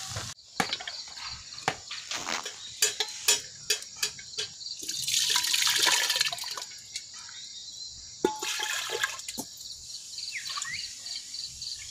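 Clinks and knocks of metal cookware, then, about five seconds in, a splashing pour as food is tipped into an aluminium pot of water, followed by more clatter.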